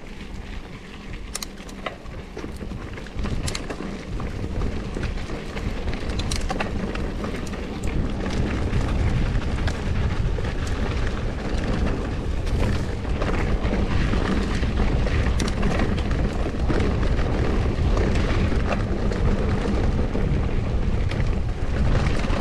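Wind buffeting the microphone and mountain-bike tyres rolling over a dirt trail on a fast descent: a low rumble that grows louder over the first several seconds, with scattered clicks and rattles from the bike.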